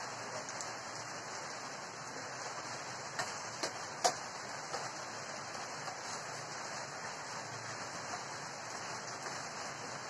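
Steady rain falling, with a few light clicks of spoons on plates, the sharpest about four seconds in.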